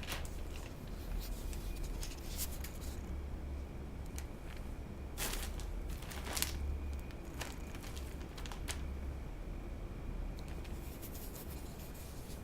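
Irregular scratching, rustling and crinkling from a kitten moving about in a cheap basket, with scattered sharp clicks, over a low steady rumble.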